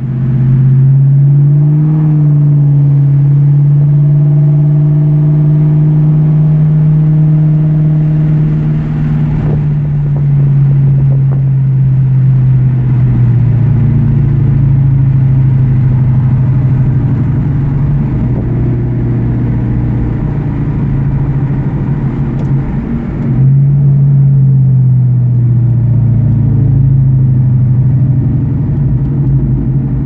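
Car engine and exhaust droning at a steady cruise, heard from inside the cabin while driving alongside a concrete wall that throws the exhaust note back. The pitch holds level, then dips briefly and climbs back about two-thirds of the way through.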